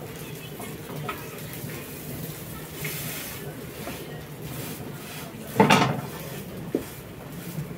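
Egg-dipped bread slices frying in a pan, with metal tongs clicking against the pan; one louder clatter of the tongs on the pan about five and a half seconds in as the slices are turned.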